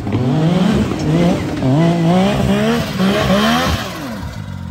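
Turbocharged Yamaha YXZ1000R side-by-side's three-cylinder engine revving up and down again and again under hard throttle, then dropping to a lower steady note near the end.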